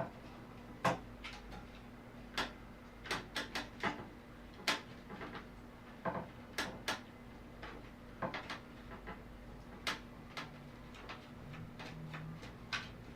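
Irregular light clicks and taps of an Amiga 500 keyboard's circuit board and metal plate being handled and eased back into place during reassembly, about two dozen scattered through the stretch.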